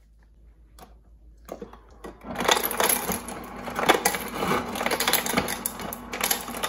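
Objects being handled close by: a dense run of small rattles, clicks and scrapes that starts about a second and a half in and goes on busily to the end.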